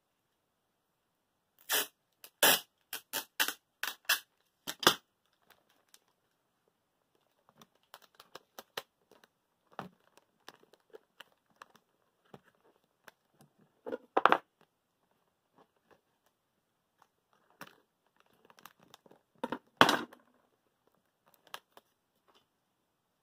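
Adhesive tape ripped off the roll in a quick run of about seven loud rips, then paper and tape on a box crinkling and rustling as it is pressed and smoothed, with two louder crinkles near the middle and near the end.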